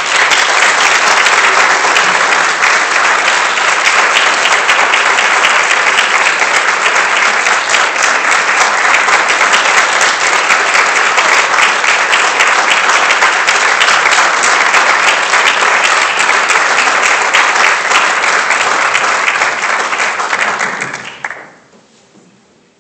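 Audience applauding: loud, dense clapping that starts abruptly, holds steady, and dies away about twenty-one seconds in.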